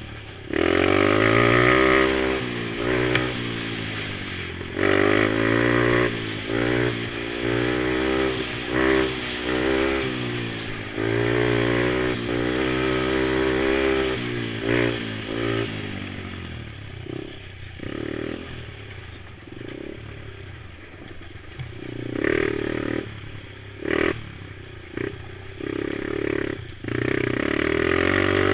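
Small mini quad engines racing, revving up and falling back again and again as riders work the throttle. After about 16 seconds the engine note drops away to a quieter, lower running with short throttle blips and a few sharp knocks, then swells again near the end.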